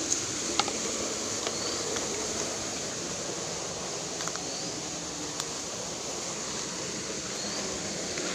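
Steady rush of flowing creek water, with a few faint clicks of footsteps on stones and pebbles.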